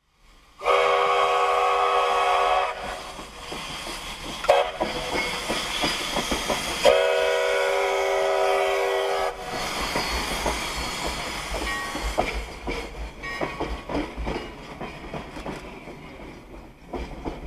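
Steam whistle of Sierra Railway No. 3, a 4-6-0 steam locomotive, sounding for the grade crossing: a long blast, a short toot and another long blast. Then the passing train's wheels rumble and clatter over the rails.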